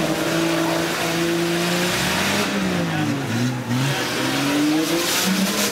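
Nissan Patrol engine working hard through deep mud: a steady note for about two seconds, then the revs drop and climb several times as the throttle is worked, with mud and water splashing.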